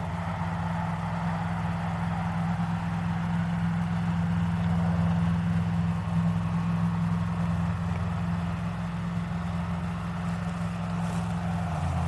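An engine idling steadily, a low, even hum that holds without revving and shifts slightly near the end.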